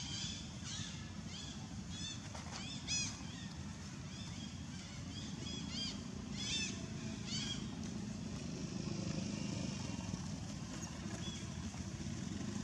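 Steady low engine drone of distant motor traffic, with short high arched chirping calls about twice a second for the first seven seconds, then fewer.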